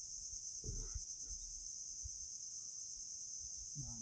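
Steady high-pitched chorus of insects buzzing without a break, with a brief low thump just under a second in.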